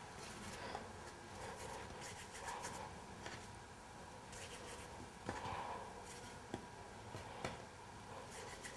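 Hands handling gnocchi dough at a counter: faint rubbing with a few soft clicks and taps spread through.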